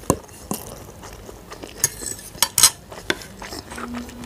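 A metal fork and ceramic plates and bowls clinking and knocking together: about half a dozen separate clinks, the loudest a little past halfway.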